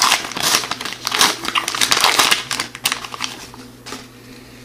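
Wrapper of an O-Pee-Chee hockey card pack crinkling as it is torn open by hand, dying down after about three seconds.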